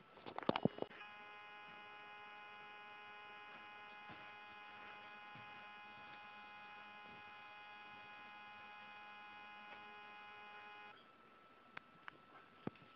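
A steady electrical buzzing hum made of many evenly spaced tones. It starts about a second in, after a few short sharp sounds, and cuts off suddenly near the end, with a few faint clicks after it.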